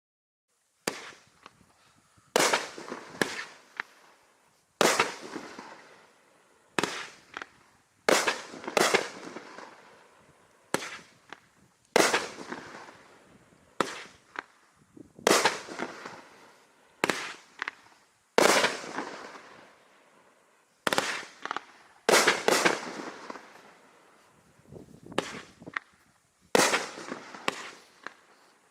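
Raccoon Fireworks 'The Black Hole' multi-shot fireworks cake firing: about twenty sharp bangs, one every one to two seconds, each followed by a fading tail. The first shot comes about a second in.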